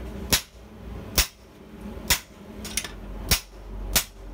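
Hand hammer striking the top die of a blacksmith's guillotine tool, forging a red-hot square piece of steel held between the dies: about six sharp metal-on-metal blows, evenly spaced a little under a second apart, one of them lighter.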